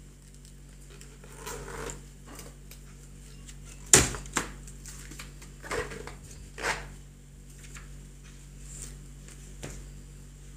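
Stacks of paper and catalogues handled on a desk: rustling and papers being set down in a few short bouts, with one sharp knock about four seconds in, over a steady low hum.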